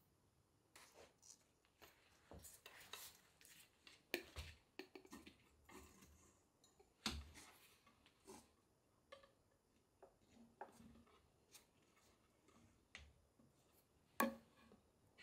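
Faint handling noises from a glass tank being fitted out: scattered light knocks, clicks and rubbing as tile-faced foam panels are pressed and set into it, with sharper knocks about four seconds in, about seven seconds in and near the end.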